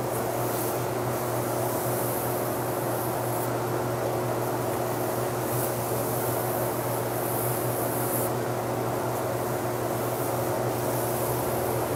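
A steady low machine hum with hiss, unchanging throughout.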